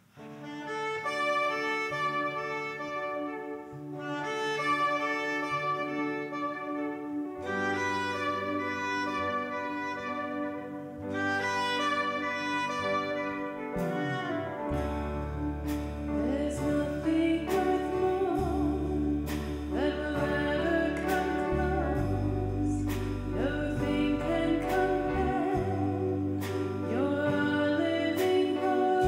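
Church organ playing slow, sustained chords. About halfway in, deep bass pedal notes join and the sound grows fuller.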